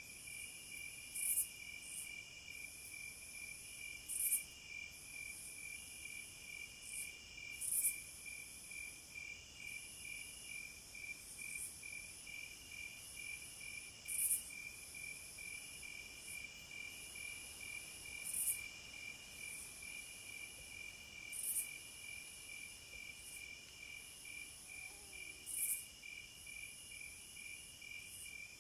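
Cicadas calling in chorus: a steady, fast-pulsing high trill, with louder high-pitched buzzes swelling up about every three to four seconds.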